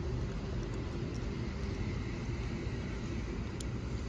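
Sydney Trains H-set (OSCAR) electric multiple unit at the platform, giving a steady low rumble with a faint even hum.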